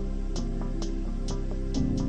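Background music: sustained mellow notes over a bass line, with a light percussive tick about twice a second.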